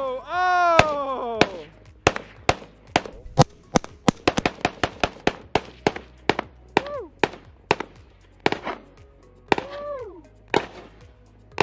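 AK-47 rifle firing rapid semi-automatic shots, one trigger pull at a time at an uneven pace. The shots come about three to four a second in the middle and thin out to scattered single shots near the end.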